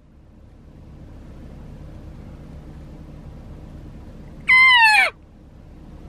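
A cow elk mew blown on a hunter's call: one loud, nasal note about half a second long, falling in pitch, about four and a half seconds in. A faint steady hum runs underneath.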